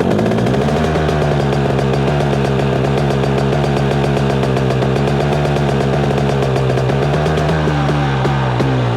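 KTM 250 SX single-cylinder two-stroke dirt bike engine running. The revs rise in the first second, hold steady, and waver up and down near the end.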